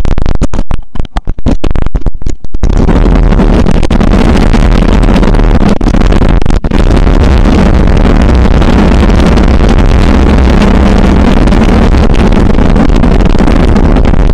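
Motorcycle riding on a dirt track, heard as engine noise and wind on the bike-mounted camera's microphone, so loud that the recording is overloaded. The first couple of seconds are choppy with brief dropouts, then the din runs on continuously.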